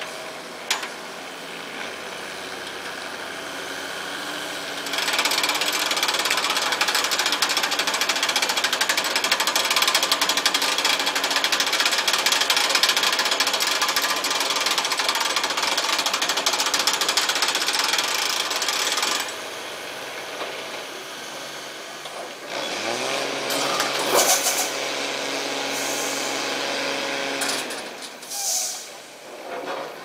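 Diesel engine of a heavily loaded log truck running under load. It gets much louder about five seconds in and stays loud until about nineteen seconds, then drops back; a steady engine note holds from about twenty-three to twenty-seven seconds.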